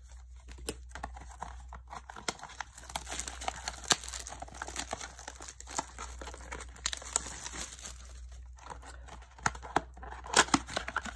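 A 2021 Panini Prestige football blaster box being torn open by hand: its plastic wrap and cardboard crinkle and rip in a long run of irregular small crackles.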